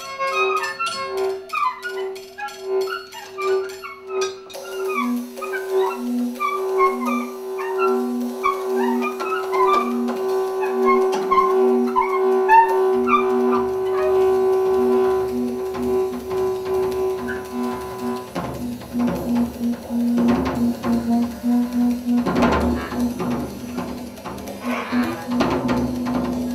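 Free improvised music for bass clarinet, toys and lo-fi electronics, and homemade percussion. Two tones pulse in steady repeats under a stream of short squeaky chirps. About two-thirds of the way in, clattering percussion and drums join.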